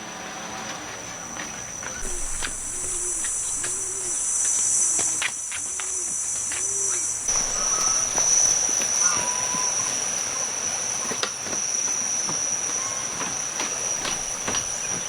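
Steady high-pitched shrill of insects, with a few short rising-and-falling calls over it a few seconds in.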